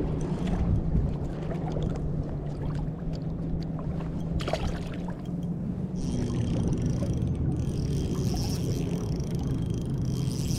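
A boat's motor hums steadily, with choppy water lapping and splashing over it. A higher hiss joins about halfway through.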